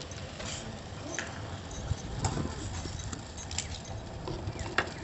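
A spoon stirring the kashayam in its pot, with a few light clinks and taps against the vessel over a steady hiss.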